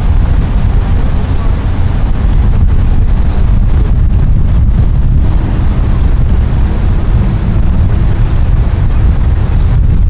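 Wind buffeting the microphone: a loud, steady low rumble with no distinct events.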